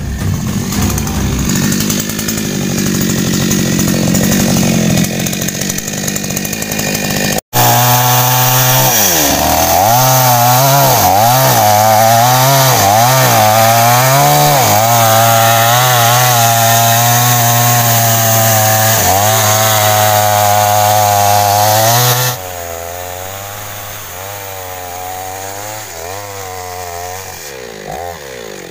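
Intro music for the first seven seconds or so, then a sudden cut to a two-stroke petrol chainsaw cutting through a log. The engine note sags and picks up again over and over as the chain bites. About two-thirds of the way through, the saw drops much quieter and keeps running, with a few revs near the end.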